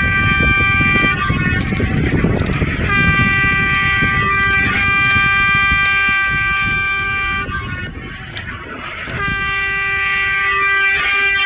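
Train horn sounding in long, steady blasts on a single pitch, broken twice briefly (a little after one second and around eight seconds), over a low rumble.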